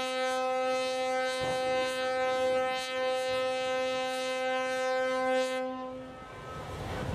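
Ship's horn sounding one long, steady blast that stops about six seconds in, followed by a rushing noise.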